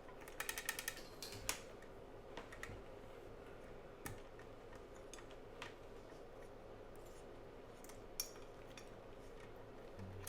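Scattered clicks and light clatter of test equipment being handled on a bench: a quick run of clicks about half a second in, a sharper click soon after, then occasional single ticks, over a faint steady hum.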